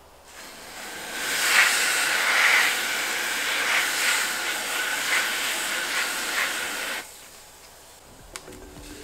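Aerosol freeze spray hissing from its straw nozzle into a stainless steel bowl of Orbeez: one continuous spray of about six seconds with slight surges, cutting off sharply near the end.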